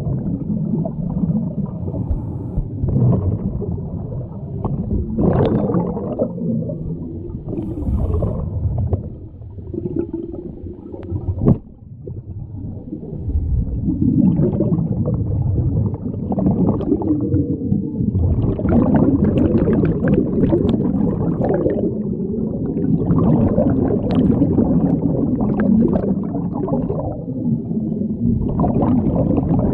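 Muffled underwater bubbling and rumble from scuba divers' exhaled air, with a sharp click about a third of the way in.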